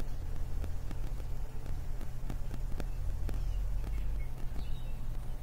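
Steady low electrical hum with irregular crackling clicks: static and crackle from a malfunctioning computer's audio.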